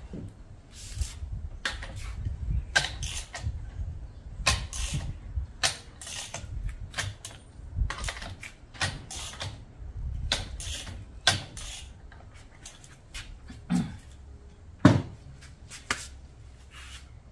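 Irregular light metal clicks and taps from hand tools and parts handled on a bare aluminium cylinder head, one or two a second, over a low steady rumble. A louder knock comes about fifteen seconds in.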